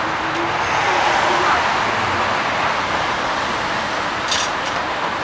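Street traffic: cars passing on a city street, a steady wash of tyre and engine noise. A brief high-pitched sound cuts through about four seconds in.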